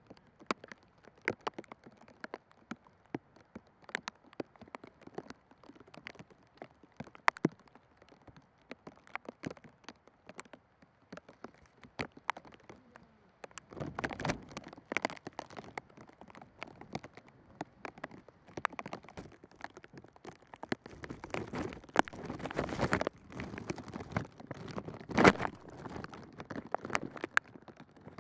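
Football training-pitch ambience: scattered sharp knocks and thuds of footballs being struck, irregular and at varying distances. From about halfway it gets busier, with more strikes over a rushing background noise.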